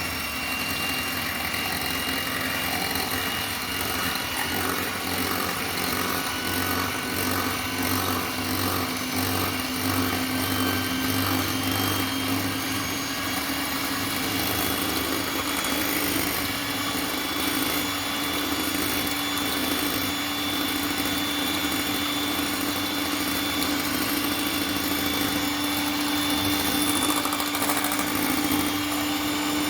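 Electric mixer running steadily as it beats eggs and sugar, its motor hum creeping slightly higher in pitch over time.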